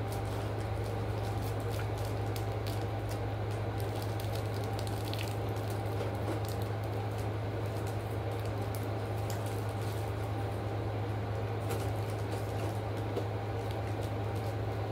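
A plastic snack wrapper crinkling, with small clicks and eating noises as food is unwrapped and eaten, over a steady low hum.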